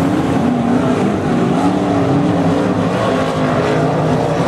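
Several dirt-track modified race cars running together at speed, their V8 engines overlapping in wavering notes that rise and fall as the pack goes round the oval.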